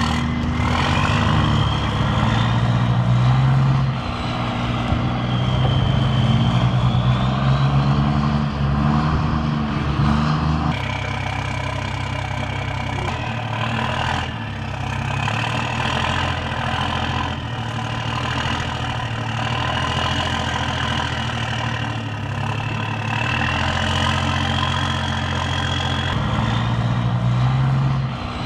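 Amphibious Combat Vehicle's diesel engine running as the eight-wheeled vehicle drives on dirt, with a high whine that rises and falls in pitch. The low engine note shifts about eleven seconds in.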